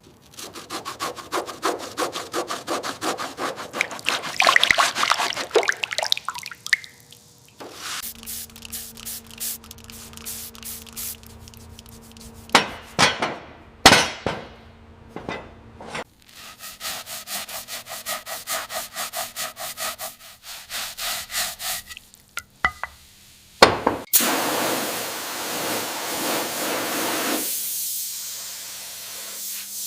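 Fast, even hand-scrubbing strokes on a part, in several short cut sections with a few sharp knocks about halfway through, then a steady hiss of spray over the last few seconds.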